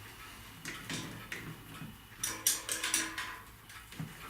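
Light metallic clinks and taps, irregular and scattered, with a busier run of them in the middle.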